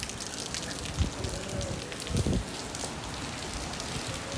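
Rain falling on a wet stone street, with many small drop hits. Two dull low thumps come about one and two seconds in.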